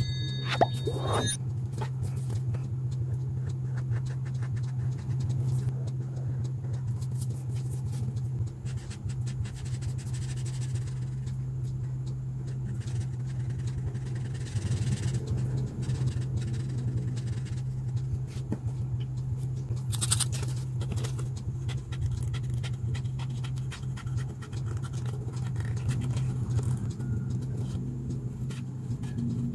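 Marker pen scratching on paper in many short strokes as an outline is drawn and inked, over a steady low hum.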